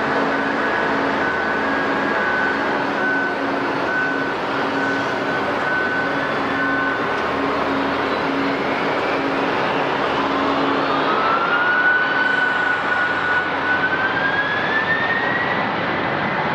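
Jet airliner engines running with a steady roar. About ten seconds in, a turbine whine rises in pitch, holds, then climbs again, as the engines spool up. An intermittent beeping tone repeats through the first half.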